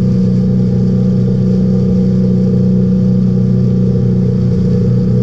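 Boat engine running at a steady speed, a loud, even drone that holds one pitch.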